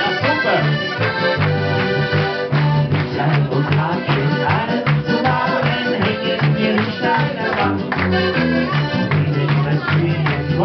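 Live Alpine folk music: a diatonic button accordion leads over bass guitar and guitar with a steady, lively beat.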